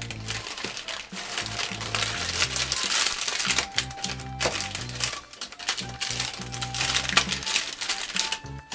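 Parchment paper crinkling, with a wooden spatula clicking and scraping as it presses and cuts a sheet of setting caramel-and-sunflower-seed brittle, over background music.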